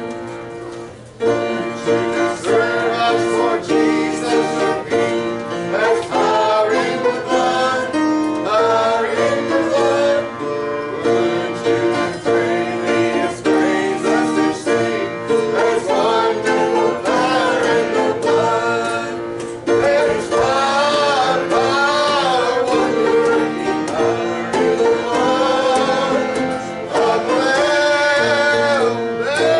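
A gospel song in country or bluegrass style: a voice singing over plucked acoustic string accompaniment.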